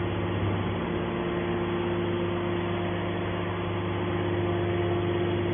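Hydraulic metal baler's power unit running with a steady mechanical hum of constant low tones, without change or impacts.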